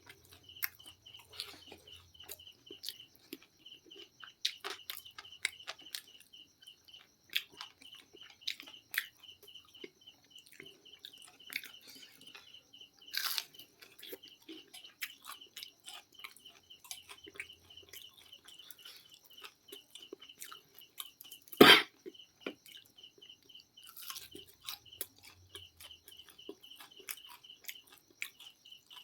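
Close-up chewing and biting of crispy fried chicken: irregular wet crunches and mouth clicks, with one louder crunch about halfway through and a single loud thump a little later. An insect chirps in a fast, even pulse underneath.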